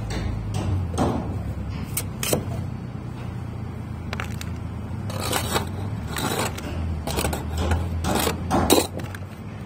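Bricklayer's steel trowel scraping and tapping wet mortar on clay brickwork: a series of short, irregular scrapes and knocks, busiest in the second half, over a steady low hum.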